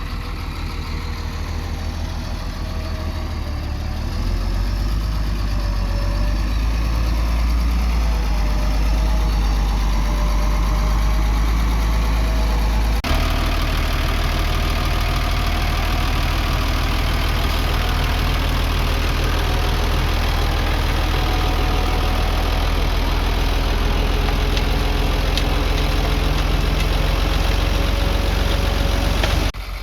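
Diesel engine of earthmoving machinery running steadily with a deep rumble. It grows louder about four seconds in and changes abruptly about halfway through.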